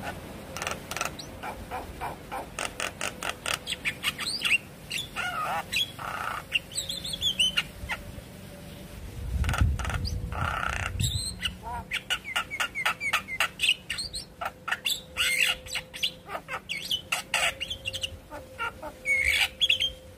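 Javan myna (jalak kebo) calling in a fast, varied run: rapid clicking notes several a second, broken by whistled glides and a couple of harsh squawks.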